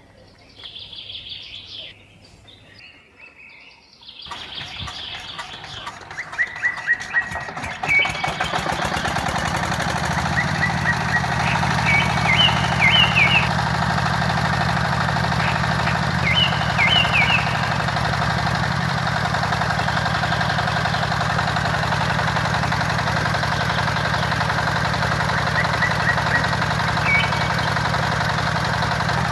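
Birds chirping. About four seconds in, the mini tractor's small motor starts, speeds up over a few seconds, then runs steadily, with a few bird chirps over it.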